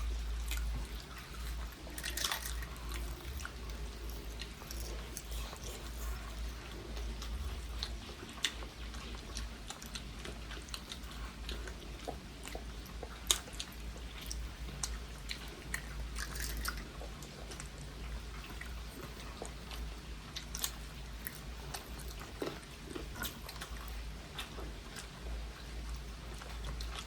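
A person eating close to the microphone: chewing and biting food, with many short crunchy clicks scattered throughout.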